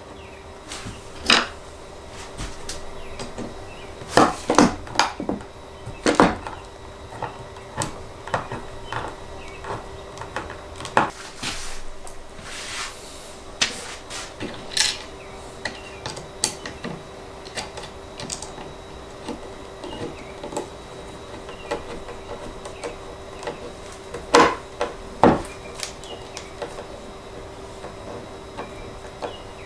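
Scattered small clicks and knocks of washers, screws and a small screwdriver against the wood and plywood of a mountain dulcimer kit as the neck is screwed to the top. There are clusters of louder knocks about four to six seconds in and again about twenty-five seconds in, over a faint steady hum.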